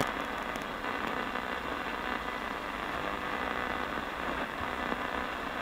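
Ghost box: a portable digital radio sweeping through the AM band, giving a steady hiss of radio static.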